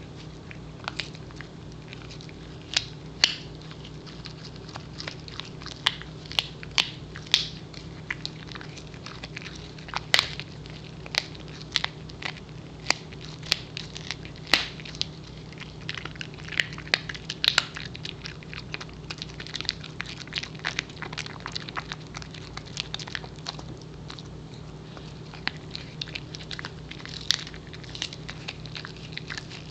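Pembroke Welsh Corgi gnawing on a hard dried beef pizzle (bully) stick: irregular sharp crunches and clicks of teeth on the chew, with a steady low hum underneath.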